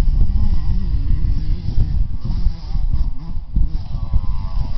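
Pit bike engines revving at a distance, their pitch rising and falling, over a heavy, uneven low rumble.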